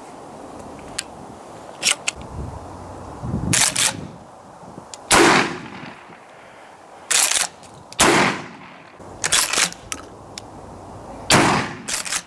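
Browning BPS Predator Hunter 12-gauge pump-action shotgun firing three loud shots about three seconds apart, each with a ringing tail, with quicker double clacks of the pump action being worked between them.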